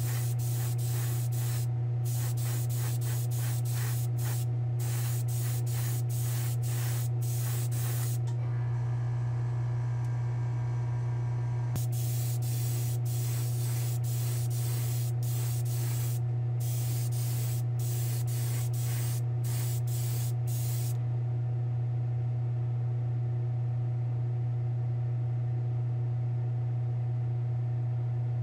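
Small gravity-feed spray gun spraying clear coat in short hissing bursts, about two a second. The bursts pause for a few seconds about eight seconds in and stop about twenty seconds in, leaving a steady low hum.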